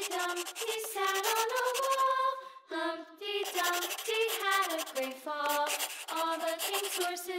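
Background music: a high voice singing a children's song, stepping from note to note, with a brief break about three seconds in.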